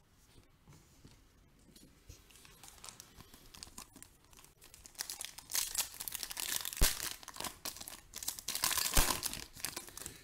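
Foil wrapper of a Panini Optic basketball card pack being torn open and crinkled by hand. Faint card handling comes first, then loud crinkling and tearing from about five seconds in, with a couple of sharp cracks.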